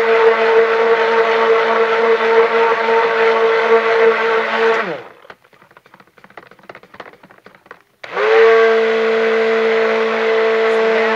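Immersion stick blender running in soap batter that has reached a thin-pudding trace, with a steady motor whine. It switches off about five seconds in and winds down, a few faint clicks follow, and it starts up again about three seconds later.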